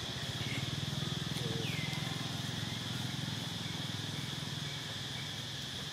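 A small engine running steadily at a low pitch, under a constant high-pitched buzz, with a few brief chirps, one a falling squeak about a second and a half in.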